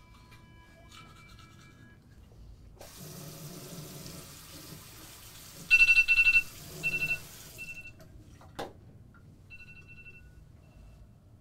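Bathroom sink tap running, water splashing into the basin for about five seconds, then turned off, with a click shortly after. Loud short high-pitched buzzes cut in over the water about halfway through, and twice more, quieter, near the end.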